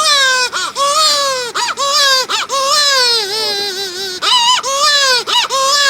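A person imitating a baby crying: a string of loud, high-pitched wailing cries, each sliding down in pitch, with short catches of breath between them.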